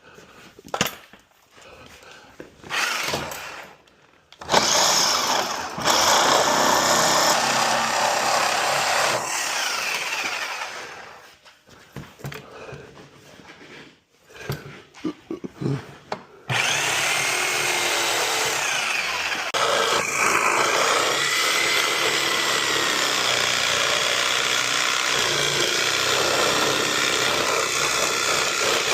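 Power saw cutting metal, fitted with a blade that isn't meant for metal. It runs for about five seconds, stops and starts in short bursts, then cuts steadily from a little past halfway.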